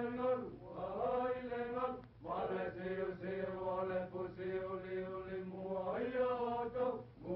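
Title music on an early-1930s cartoon soundtrack: a chant-like line of long held notes, each sliding up into its pitch, over a steady low hum from the old optical sound track.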